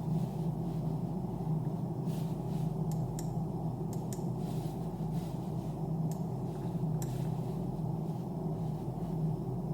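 A steady low hum runs throughout, with a few faint, brief ticks or rustles now and then from a mouse and its packaging being handled.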